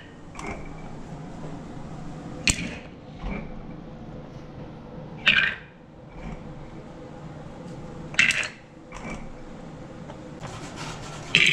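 Sharp knocks repeating about every three seconds, each followed by a lighter knock under a second later, over a steady background hum.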